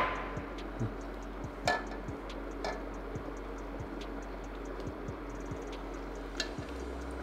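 Metal ladle scooping thick soup in a pan and tapping against the pan and a ceramic bowl: a few light clinks, about two seconds in, again a second later and near the end, over a faint regular ticking.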